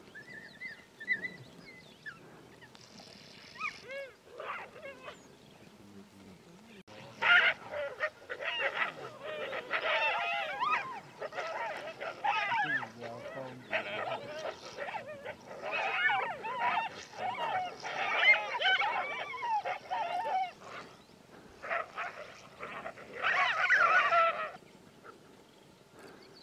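Ethiopian wolves and honey badgers calling during a fight: faint calls at first, then from about seven seconds in dense bursts of high-pitched calls bending up and down, which stop shortly before the end.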